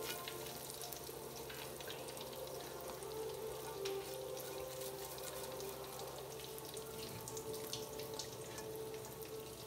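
Thick atta halwa cooking down in ghee in a nonstick pan, sizzling and crackling faintly as it is stirred and folded with a silicone spatula, at its last stage when the ghee separates and the halwa is nearly ready. A faint steady hum runs underneath.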